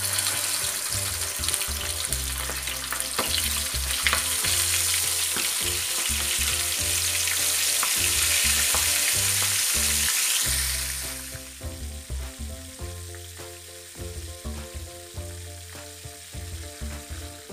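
Flour-coated stuffed squid sizzling loudly in hot oil in a frying pan, with a few sharp clicks of metal tongs. The sizzle drops to a quieter frying sound about two-thirds of the way through. Background music with a steady bass line plays underneath.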